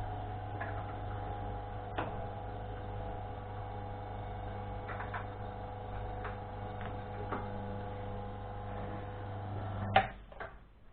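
Electric copper-wire stripping machine running steadily, pulling the last of a roll of insulated wire through, with a few light clicks. It stops abruptly with a click about ten seconds in.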